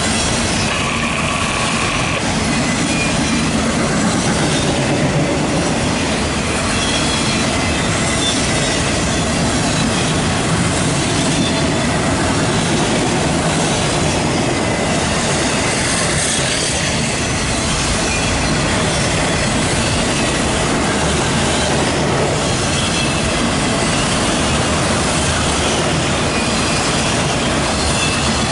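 Freight train of autorack and intermodal cars rolling steadily past, a continuous rumble and clatter of wheels on rail, with a brief high wheel squeal about a second in.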